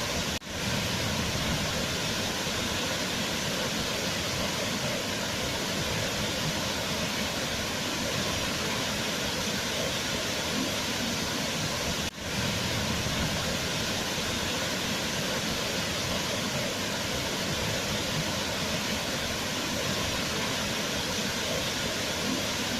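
Waterfall rushing in a steady, even roar of water, with two very brief dips in level, about half a second in and about twelve seconds in.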